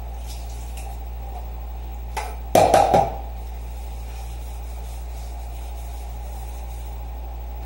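Stainless-steel pans being washed at a sink: a quick burst of several loud metallic knocks about two and a half seconds in, over a steady low hum.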